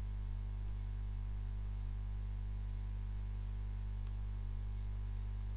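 Steady low electrical mains hum with a faint hiss underneath, unchanging throughout.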